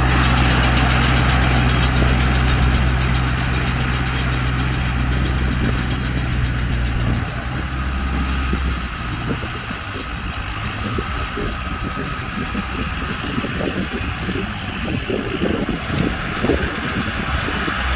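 Tractor engine running a Bharat 9060 baler, with mechanical clatter throughout. The deep steady engine hum drops away between about seven and nine seconds in and comes back near the end.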